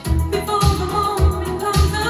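A pop song with a singing voice and a bass beat about twice a second, played through Boston Acoustics E100 bookshelf speakers and heard from across the room.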